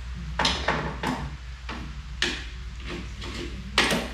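Metal hand tools clinking and clanking against bolts and the go-kart's metal frame during engine removal, about five sharp knocks at uneven intervals.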